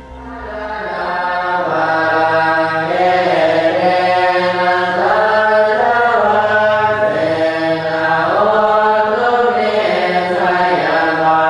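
Buddhist monks chanting together in unison, a steady group chant that swells up over the first two seconds.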